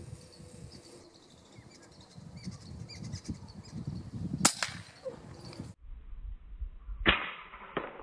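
Two sharp shots from a Nova Vista Alpha PCP air rifle, one about halfway through and another near the end followed by a fainter click, over low rustling handling noise.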